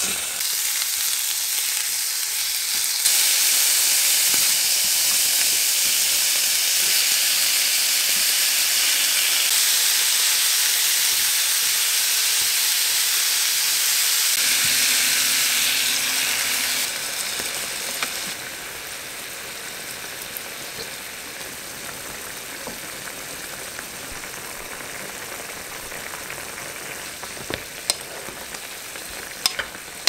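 Food sizzling as it fries in a pan. The sizzle grows louder about three seconds in, then eases to a quieter steady sizzle a little past halfway, with a few light clicks near the end.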